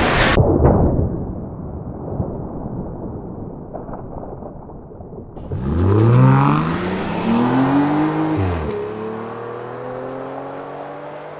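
An engine revving: its pitch rises and then falls about halfway through, and it settles into a steady hum near the end.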